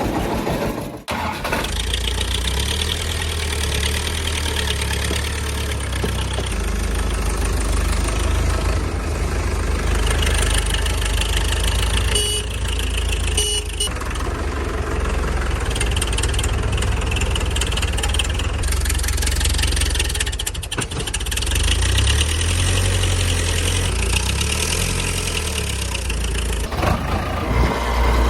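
Tractor engine running steadily with a low drone, with a short drop about a second in and two brief high beeps about halfway through.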